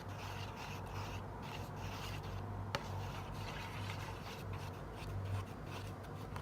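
Soft intermittent rubbing and scraping as hands work the slime ingredients and the bowl, with one sharp click a little under three seconds in, over a steady low hum.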